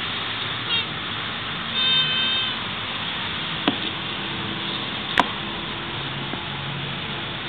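Male Greek tortoise squeaking while mounted on a female: a brief wavering squeak under a second in, then a longer high squeak about two seconds in. Two sharp knocks follow, near four seconds and just past five seconds, over a steady hiss.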